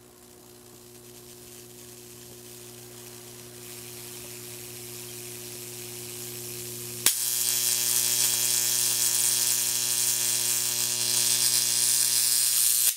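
Electrical transformer hum growing steadily louder, then about seven seconds in a high-voltage arc from a Belmont dental X-ray transformer strikes across the wire gap with a snap and runs as a loud sizzling buzz over the hum, until the power cuts off suddenly at the end.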